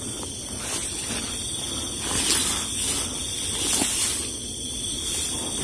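Steady hiss with a constant high insect drone from night insects, swelling slightly a couple of times.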